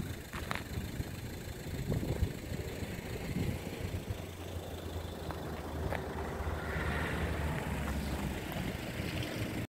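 A vehicle engine running at idle, a steady low hum with a few faint clicks, that cuts off suddenly at the very end.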